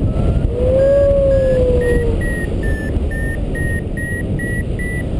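Paragliding variometer beeping about twice a second, the pitch edging up, which signals that the glider is climbing in lift. A louder hum-like tone sounds before the beeps start, and wind rushes over the microphone.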